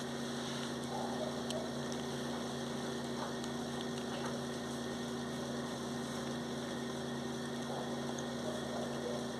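A steady low hum from a motor or appliance, with a few faint ticks.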